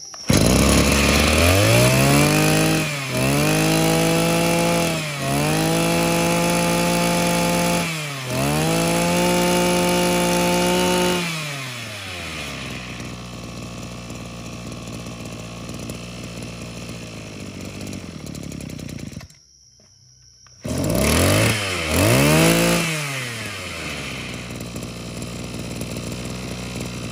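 Maruyama 23cc two-stroke brush-cutter engine held at high revs, the throttle eased off and reopened three times, then dropping to a steady idle about twelve seconds in. It goes quiet for a moment around twenty seconds in, then revs up twice and settles back to idle.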